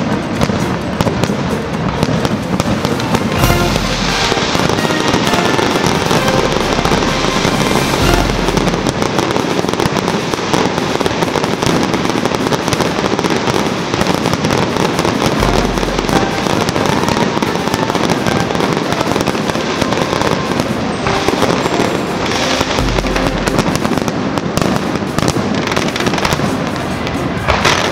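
Dense fireworks barrage: a continuous crackling of many bursting shells and crackers, with four deep booms spread through it.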